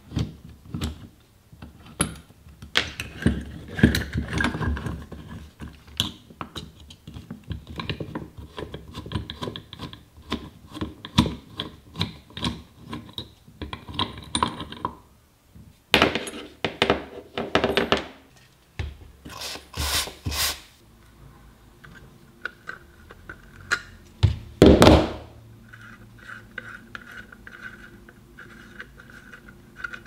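Metal and wooden parts of an old Peugeot Frères G1 coffee grinder being handled and taken apart: many small clicks, knocks and scrapes, with a few louder knocks past the halfway point and around three-quarters of the way through.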